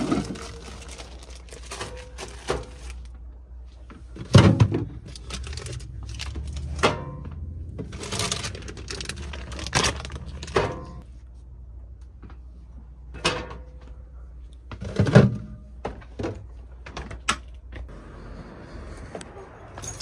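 Food and containers being moved around and taken out of a refrigerator: clinks and knocks on the wire shelves and a plastic bag rustling, with two heavier thunks about four and a half and fifteen seconds in.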